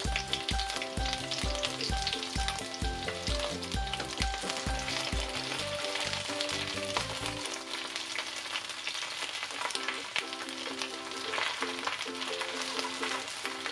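Chicken wings sizzling and crackling as they fry in shallow oil in a nonstick pan on low heat. Background music with a melody and a steady bass beat plays under it, and the beat drops out about halfway through.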